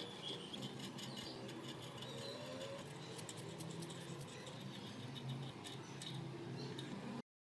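Hand work on the rusty metal parts of an antique scale: many small clicks, taps and light scraping. The sound cuts off abruptly near the end.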